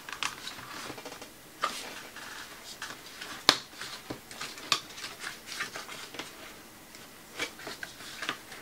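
Lenovo ThinkPad X230T's plastic palm rest being worked loose by hand: scattered plastic clicks and snaps as its side tabs are freed, with light rubbing of fingers on plastic. The sharpest snap comes about three and a half seconds in.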